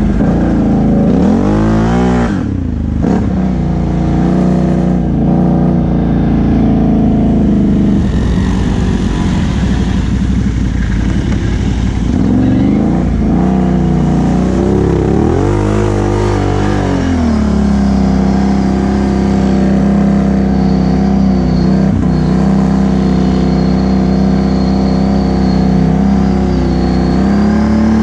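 2017 Can-Am Outlander XMR 1000 ATV's V-twin engine with a Big Gun exhaust, heard on board while riding a dirt trail. The revs climb and fall twice, then hold a steady pitch for the rest of the ride.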